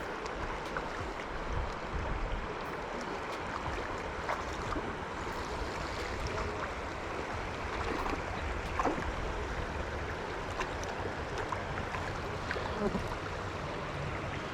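Flowing river water rushing steadily, with a few faint light ticks over it.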